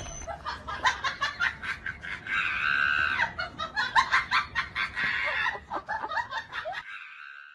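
A flock of pigeons taking off, their wings clattering, with a high-pitched voice laughing and shrieking in short rhythmic bursts over it.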